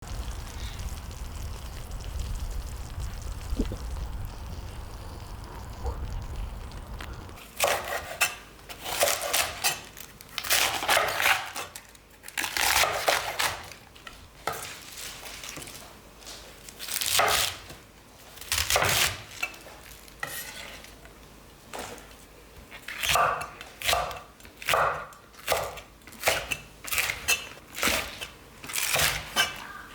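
Food being stirred and scraped in a pan with a utensil, with some sizzling, in repeated strokes of about a second each that quicken to roughly one a second in the last third. A low rumble fills the first seven seconds before the strokes begin.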